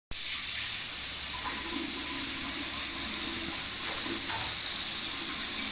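Basin mixer tap running, its stream of water hissing steadily into the sink; it starts suddenly.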